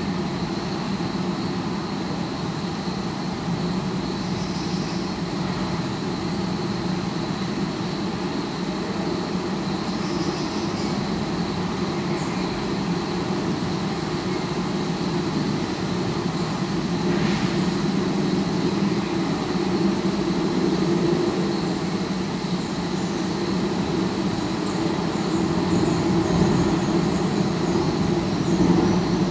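Steady city traffic rumble, picked up through the twin acoustic horns of a sound-mirror listening device, with a thin steady high tone above it. It swells slightly toward the end.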